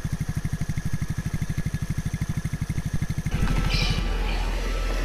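A concrete mixer truck's diesel engine running with a rapid, even pulsing, cut off about three seconds in. A steady low rumble follows.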